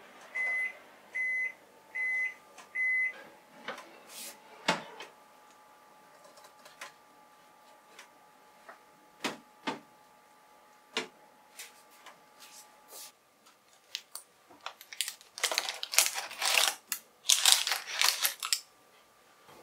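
Panasonic Bistro oven beeping four times to signal that baking is done, followed by scattered clicks and knocks as the oven door opens and the metal tray is pulled out. Near the end comes a burst of clattering and rustling as the pan in its parchment is handled and set down.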